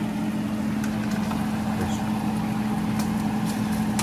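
A steady machine hum holding one low pitch, with a few faint light clicks about three seconds in.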